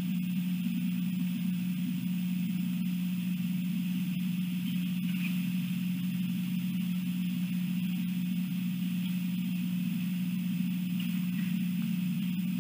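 A steady low hum at an even level, with a faint high hiss above it.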